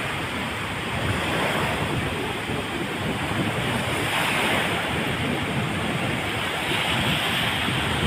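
Small, choppy sea waves breaking and washing up onto a sandy beach in a steady wash, with wind gusting across the microphone.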